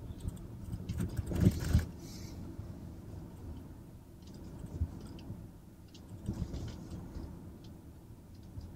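Road and tyre noise heard inside the cabin of a moving Tesla Model Y, an electric car with no engine sound, as a steady low rumble. A brief louder rumble comes about a second and a half in.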